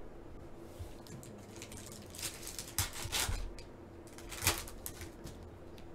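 Foil wrapper of a Panini Select football card pack being torn open and crinkled by hand. It makes several short crinkling rustles in a cluster around the middle and one more sharp crackle about four and a half seconds in.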